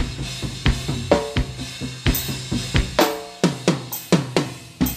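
Background music: an instrumental drum passage of quick, sharp drum hits, several sliding down in pitch just after they are struck.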